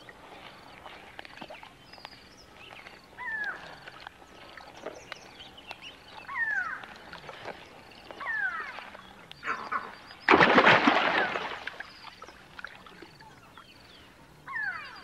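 Crocodile hatchlings giving short, high, falling chirps several times, their calls for their mother. About ten seconds in, a loud splash lasts about a second.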